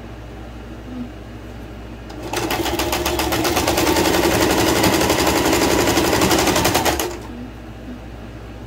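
Electric domestic sewing machine stitching at a fast, steady pace, hemming a shirred waistband. It starts about two seconds in, runs for about five seconds and stops sharply.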